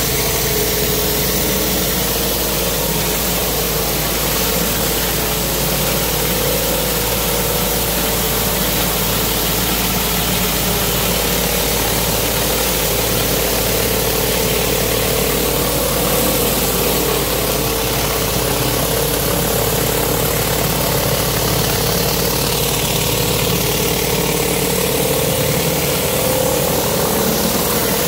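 Pressure washer engine running steadily, with the hiss of high-pressure water jets from a rotary surface cleaner spinning over wet concrete.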